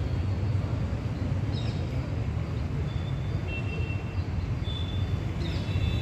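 Steady low outdoor background rumble, with a few short, high, thin bird chirps scattered through it.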